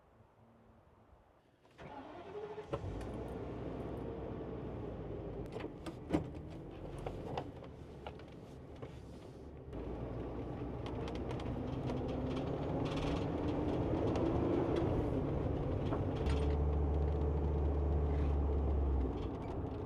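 A vehicle engine comes on suddenly about two seconds in and keeps running, its pitch rising and falling. It grows louder about ten seconds in, with a strong low hum near the end.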